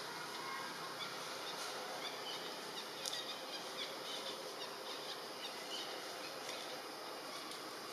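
Outdoor forest ambience: a steady hiss with scattered short, high chirps through the middle and one sharp click about three seconds in.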